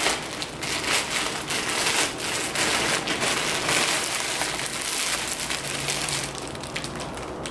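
Plastic mailer bag and the plastic-wrapped clothes inside it crinkling and rustling as they are handled and pulled out, a continuous run of small crackles.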